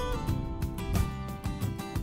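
Background music: a tune on plucked guitar strings.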